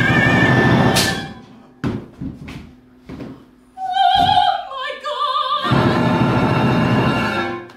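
Live chamber opera: voices singing with vibrato over a small orchestra of winds, strings, harp, piano and percussion. A loud passage opens, then a quieter stretch with a few short separate hits; a sung phrase with wide vibrato comes about four seconds in, followed by a dense loud ensemble passage that cuts off near the end.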